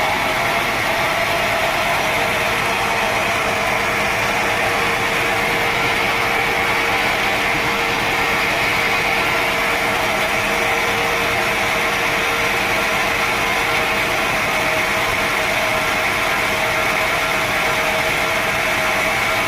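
Sawmill saw running steadily, a constant high whine over a noisy mechanical hum.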